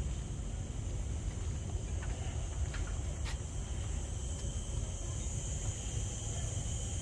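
Steady low rumble of wind on the microphone, with a continuous high insect drone from the seaside trees behind it and a couple of faint ticks about two to three seconds in.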